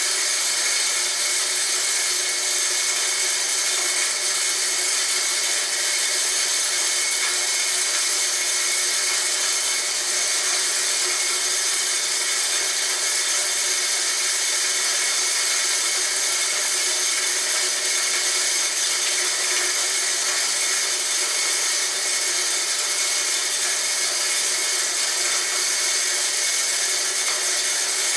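Homemade corn grinder built from a water pump, running steadily: a constant high hiss with faint steady tones and no change in level.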